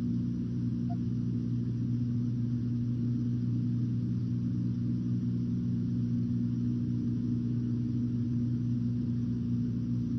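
Steady low electrical hum with hiss underneath, the background noise of an old film's soundtrack.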